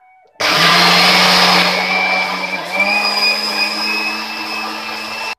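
Electric mixer grinder (mixie) motor running at speed, grinding soaked rice and lentils with coconut and dried red chillies into a thick batter. It starts abruptly about half a second in, its hum rises slightly in pitch about halfway, and it cuts off suddenly near the end.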